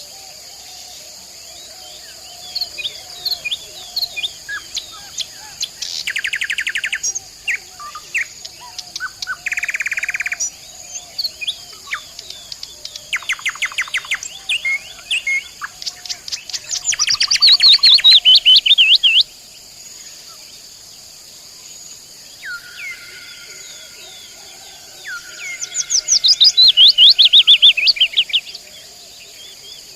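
Nightingale singing: varied phrases of rapid repeated notes and fast trills, with a pair of long drawn-out whistles about two-thirds of the way through, the loudest trills near the middle and near the end. A steady high insect hum runs underneath.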